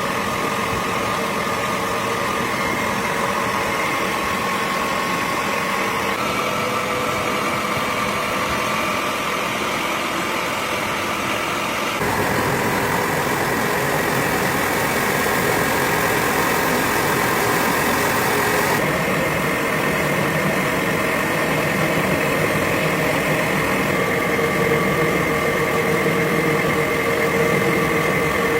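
Factory machinery running steadily: a loud mechanical hum with a few held tones. The sound changes abruptly several times, each machine sound holding a few seconds before the next.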